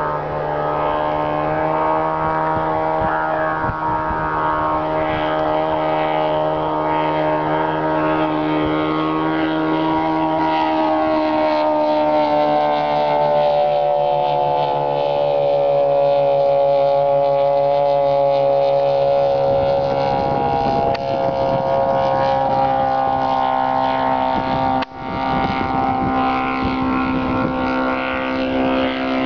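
Homebuilt light aircraft's piston engine and propeller droning steadily as it flies overhead, the pitch sliding down as it passes above. The sound breaks off for a moment near the end.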